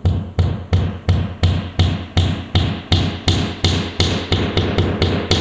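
Hammer striking in a quick, even rhythm, about three blows a second, driving something into a drilled hole ahead of the mounting screws.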